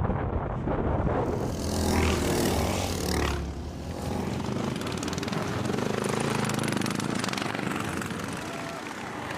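Small racing lawn mower engines running on the track, with engine noise rising and falling in pitch as machines pass by a couple of seconds in.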